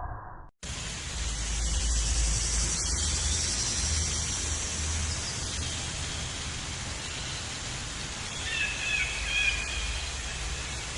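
Steady outdoor nature ambience: an even hiss with a low rumble underneath, and a few faint bird chirps about eight and a half seconds in.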